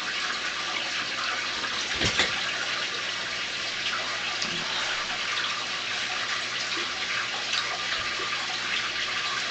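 Water pouring steadily from a hose into an aquarium, splashing and churning at the surface as the tank is refilled during a water change. A single low knock about two seconds in.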